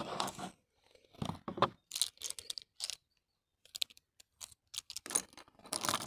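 Hands handling wooden pencils, picking one out from among others, with light clicks and rustles in short scattered bursts.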